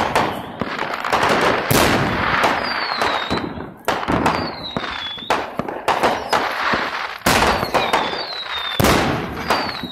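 Fireworks going off one after another: sharp bangs and crackling, with a high whistle that slides down in pitch every two or three seconds.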